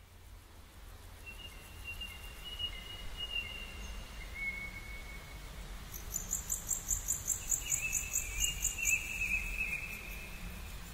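Morning birdsong ambience fading in: long drawn-out whistled bird calls, with a fast, high repeated chirping, about four or five a second, from about six seconds in for around three seconds, over a low steady rumble.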